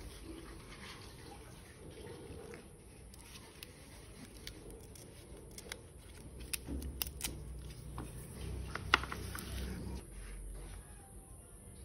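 Banana leaf being folded and handled, rustling and crinkling faintly, with scattered small clicks and one sharper click about nine seconds in.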